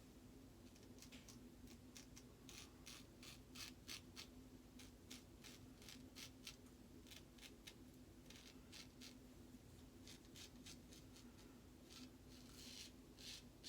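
Faint scraping of an AutoStrop safety razor cutting through lathered stubble in many short strokes, about two a second, closer together near the end.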